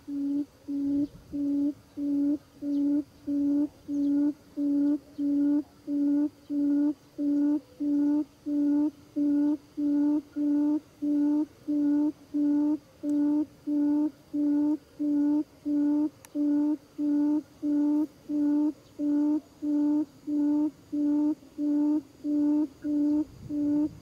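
Buttonquail lure call played to draw birds into a trap: a low hooting note repeated steadily about twice a second, every note at the same pitch and level.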